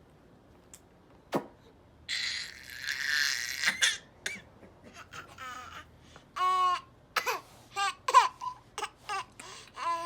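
A baby making short bursts of vocal sounds: put-on coughs, squeals and laughter, with brief pauses between them. A single click comes about a second in.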